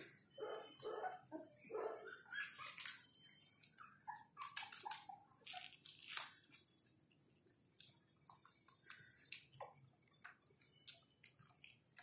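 Nursing puppies squeaking and whimpering, with a run of short falling squeaks about four seconds in, over a scatter of wet suckling clicks.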